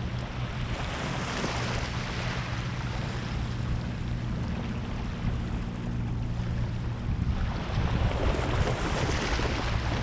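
Small waves washing up onto a sandy shore, swelling about a second in and again near the end, over a steady low hum.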